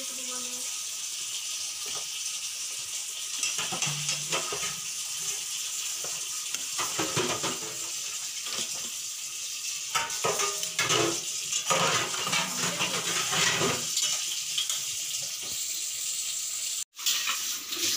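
Instant noodles (Maggi) cooking with a steady sizzle in an iron kadhai while a steel spoon stirs and scrapes them against the pan in quick repeated strokes. Near the end, milk tea bubbles at the boil in a steel pot.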